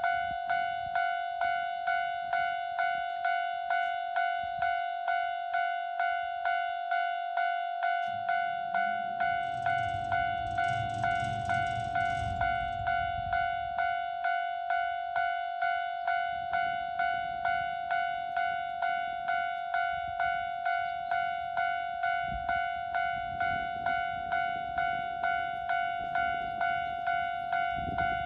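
Japanese railway level-crossing warning bell ringing steadily, about two strikes a second. A train rumbles past between about eight and thirteen seconds in.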